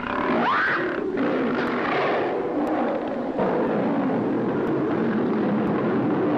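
A lion and a tiger snarling and roaring as they fight, a continuous rough din with a short rising cry about half a second in, on an old film soundtrack.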